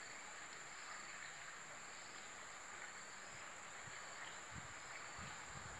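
Faint insects trilling steadily on one high pitch over an even outdoor hiss, with a few soft low thumps near the end.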